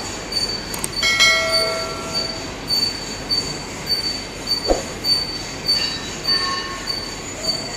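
Heavy-duty lathe running with a high-pitched squeal that pulses about twice a second. About a second in, a metallic ring sounds and fades; a short knock comes near five seconds.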